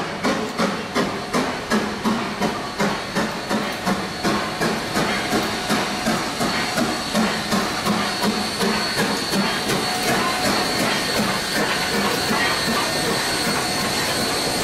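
Steam locomotive AC16 221A, a US Army-built 2-8-2, working a train with loud exhaust chuffs from its short stack, about two and a half a second at first, then quickening and running together into a steady hiss of exhaust steam as it draws near and passes.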